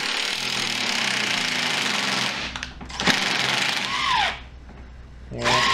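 Cordless impact driver hammering a screw into a nut to draw a prong-style threaded insert into an MDF wasteboard. It runs for about two and a half seconds, stops briefly, then runs again for about a second, ending in a falling whine as the motor spins down. A third run starts near the end.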